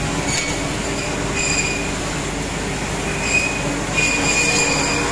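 Woodworking machines running on a furniture factory floor: a steady loud noise with short high-pitched whines that come and go about once a second.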